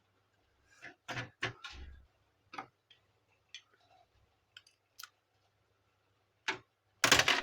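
Plastic parts of a laser printer being handled during disassembly: scattered light clicks and knocks, then near the end a loud, rapid run of clattering clicks.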